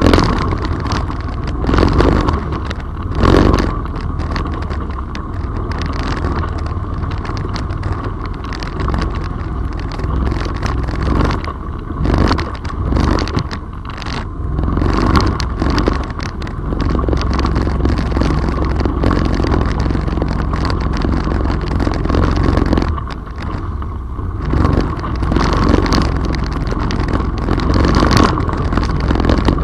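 Off-road vehicle engine running steadily as it drives along a wet, rough trail, with frequent knocks and scrapes over the bumps.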